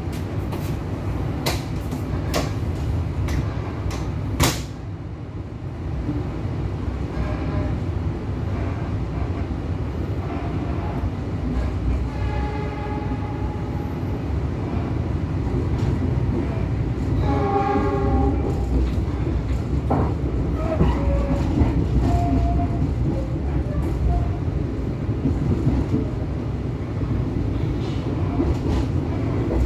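Train running through a station, heard from inside a carriage: a steady low rumble, with wheels clicking over rail joints in the first few seconds and a sharp clack about four seconds in. A train horn sounds twice, around twelve and seventeen seconds in, and the rumble grows louder in the second half as another train passes close alongside.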